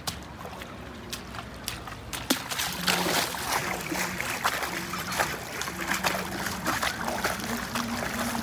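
A mesh hand net loaded with catch is dunked and hauled up in river water over and over, with water splashing and pouring out through the mesh. A few sharp clicks come in the first two seconds, then dense, irregular splashing from about two seconds in.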